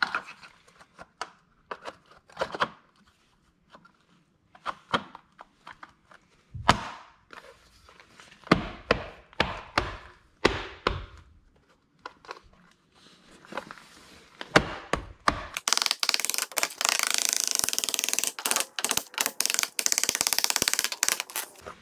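Vinyl threshold insert being snapped and pressed into its aluminum track, giving scattered sharp clicks and knocks. Near the end comes a loud, dense run of rapid tapping and scraping as a hammer seats the insert.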